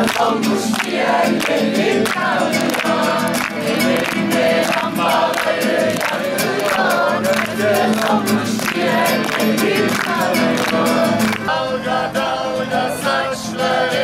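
A group of people singing together to a violin and a strummed guitar.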